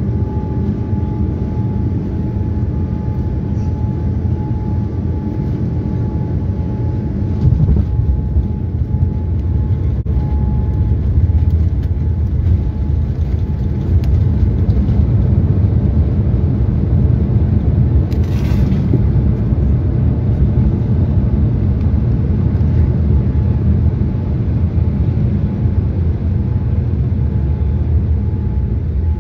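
Cabin noise of a Boeing 787-9 landing, heard from a seat over the wing: a steady low rumble of its GEnx engines, airflow and the airframe. About a quarter in, the jet touches down and the rumble gets louder. It stays louder through most of the second half as the jet rolls out with spoilers up and brakes very hard.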